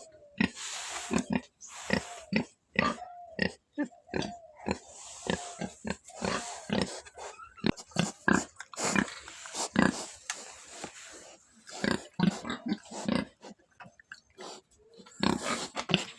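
Pig grunting over and over in short, irregular bursts, several a second.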